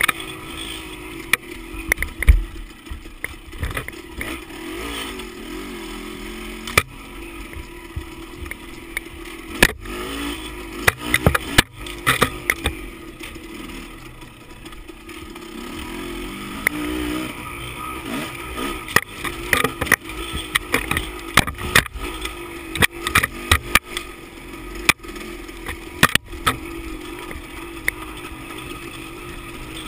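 Dirt bike engine running on a trail ride, its note wavering up and down with the throttle, over frequent sharp knocks and clatter from the bike bouncing over the rough dirt track.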